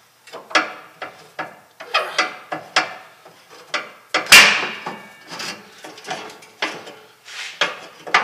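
Irregular knocks, clinks and rattles of metal parts and tools being handled and moved, with one louder clank about four seconds in.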